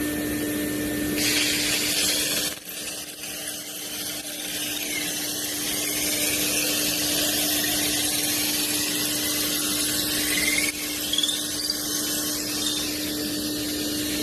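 Power tool running steadily as it works wood, with a constant motor hum and a hiss of cutting; the sound shifts abruptly a few times.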